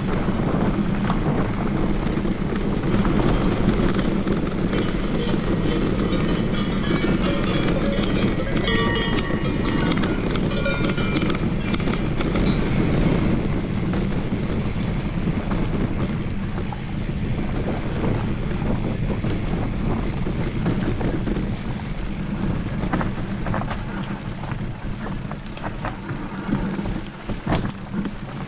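Mountain bike descending a forest trail: wind rushing over the microphone with the tyres rumbling and the bike rattling over rough ground.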